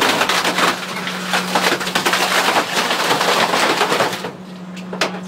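Dennis Phoenix refuse truck's rear packer blade crushing wooden pallets in the hopper: a dense crackle of splintering wood for about four seconds over the truck's steady hum, then one sharp knock near the end.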